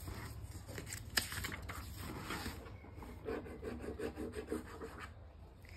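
Soft rubbing and scraping handling sounds, with one sharp click about a second in.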